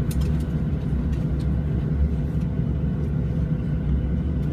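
Steady low rumble inside the cabin of a Boeing 737-700 on the ground, with a faint steady hum and a few light clicks.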